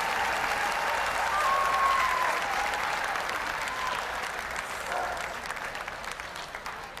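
Audience applauding, with a few voices over the clapping; the applause swells about two seconds in and then fades away toward the end.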